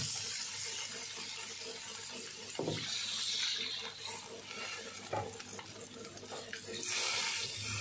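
Coconut milk poured into a wok of hot fried spice paste, hissing as it hits the oil, while a spatula stirs and knocks against the pan. The hiss swells near the start, again about three seconds in, and near the end.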